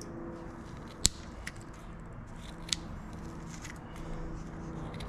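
Small scissors of a Victorinox EvoGrip S17 Swiss army knife snipping matted carpet fibres from a fishing lure's hooks: a few sharp snips, the loudest about a second in.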